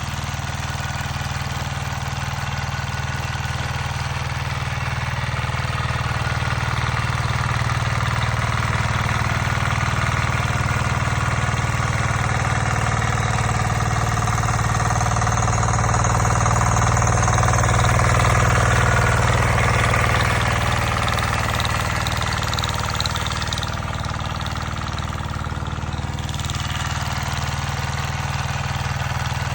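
Tractor engine running steadily, drawing closer and louder to a peak a little past the middle, then easing off.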